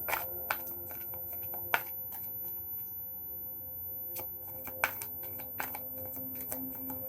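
Tarot cards being handled and laid down: a scattering of sharp, irregular clicks and snaps, the loudest about two seconds in and again near five seconds, over soft background music with held notes.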